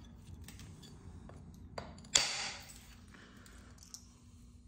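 Knapping strikes on heat-treated chert while cleaning up the edge of a large biface: a few faint clicks, then one sharp, glassy strike a little over two seconds in that rings out over most of a second, and one more small tick near the end.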